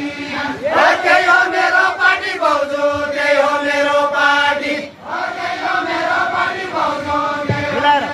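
Deuda bhaka, the Far-Western Nepali folk song, sung in chorus in long drawn-out phrases. One phrase breaks off about five seconds in and the next begins.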